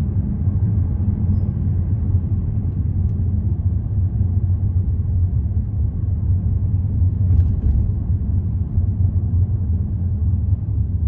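Steady low rumble of a car driving through city traffic: engine and tyre noise.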